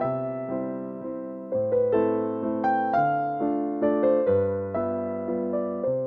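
Background music on piano: soft notes are struck and left to fade, and the chords change about every second and a half.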